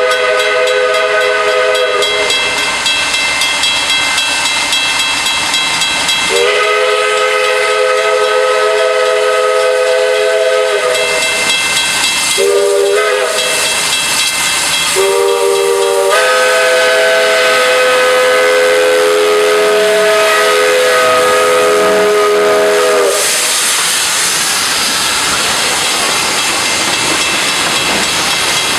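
Steam locomotive whistle sounding a chord in several blasts: one ending about two seconds in, a long one, a short one, then another long one. A steady hiss of steam runs underneath.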